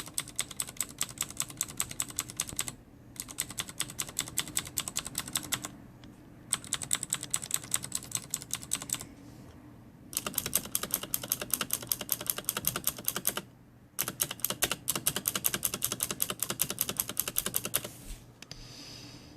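Typing on a Razer BlackWidow keyboard with Cherry MX Blue switches: fast runs of sharp, clicky keystrokes in five bursts with short pauses between them.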